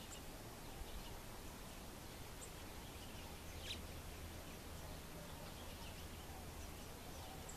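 Faint steady background hiss with a few scattered short, high, thin call notes of American bushtits, the clearest about halfway through.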